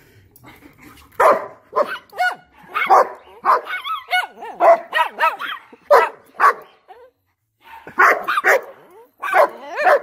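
A dog barking over and over in short bursts, with a brief pause about seven seconds in.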